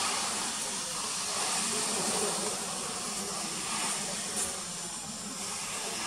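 Asian honey bee (Apis cerana) colony clustered on its comb, hissing: a steady hiss over a low buzz of wings, the colony's alarm sound when it is disturbed.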